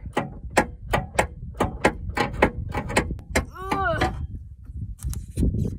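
Spare tire hoist under a van being worked to lower the spare, giving a string of sharp clicks, roughly two to three a second.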